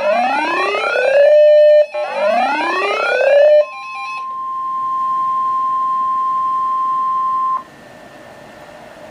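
Two rising electronic sweeps, each ending on a brief held note, then a single steady alarm tone just above 1 kHz: the NOAA Weather Radio 1050 Hz warning alarm tone, which signals a warning broadcast. It holds for about four seconds, cuts off sharply and leaves faint radio hiss.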